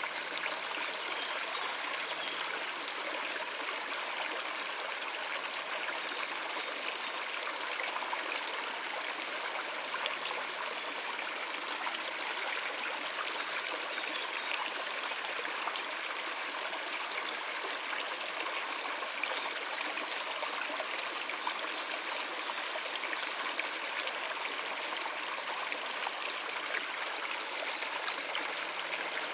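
Water running over rocks in a stream, a steady babbling rush without a break.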